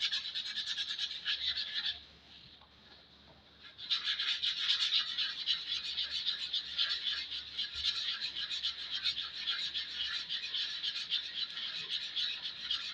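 80-grit sandpaper being rubbed rapidly back and forth over a wooden axe handle, a dense scratchy scrubbing. It stops for about two seconds near the start and then carries on.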